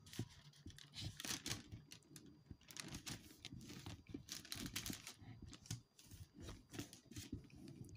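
Thin Bible pages being leafed through to find a passage: a run of soft paper rustles and crackles.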